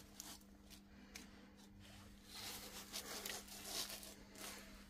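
Faint rustling and scuffing handling noises, a cluster of them about halfway through, over a steady low electrical hum.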